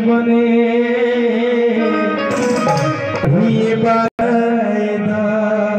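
Live Indian music: a man singing to his own harmonium, which holds sustained chords, with a hand drum keeping time. The sound cuts out for an instant a little past four seconds in.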